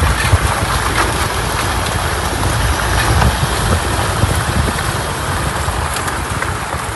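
Wind buffeting a phone microphone held outside the window of a moving 4x4, with the vehicle's tyre and road noise under a steady, heavy rumble.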